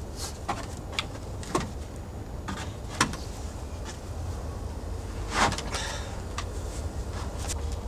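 A long steamed white oak board being handled against the wooden bending form: scattered wooden knocks, with a louder scrape about five seconds in, over a steady low rumble of wind on the microphone.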